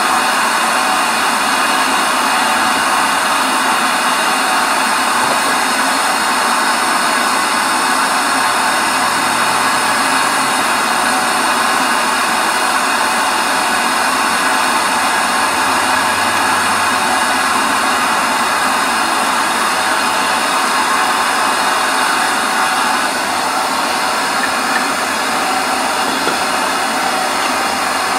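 A steady machine noise: an even rushing hiss with a faint hum underneath, dropping a little in level about 23 seconds in.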